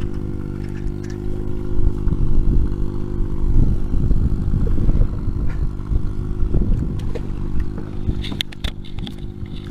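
Fishing boat's engine running steadily throughout. Over it come irregular scraping, clattering knocks in the middle, then a quick run of sharp clicks near the end.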